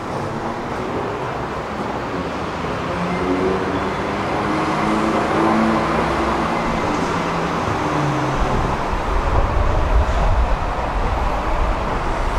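Road traffic noise, with a vehicle engine's hum swelling and fading in the middle. From about eight seconds in, a deep, uneven rumble joins.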